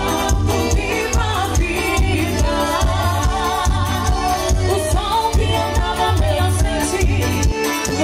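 Live forró pé de serra band music with a steady dance beat: accordion, zabumba drum and triangle, with a voice singing.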